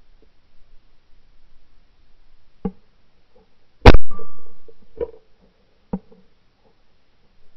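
A single 28-gauge shotgun shot about four seconds in, loud and followed by a short echoing decay, with a brief steady high tone just after it. A few fainter sharp cracks come before and after the shot.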